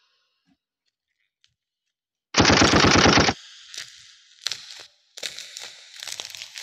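Packaging being ripped open by hand: a loud, fast rattling rip lasting about a second, a little over two seconds in, then short crinkles and crackles of plastic wrap as a wrapped pack of cards is handled and pulled open.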